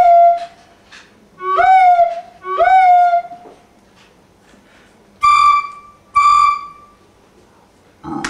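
Solo recorder playing short detached notes: three that each slide up into a held note, then after a pause two shorter, higher notes held steady.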